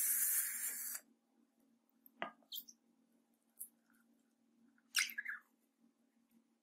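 A liquid-filled rubber balloon being cut open with scissors: a loud hiss for about the first second as it is cut, then a few faint, scattered clicks and squeaks of the scissors and wet rubber.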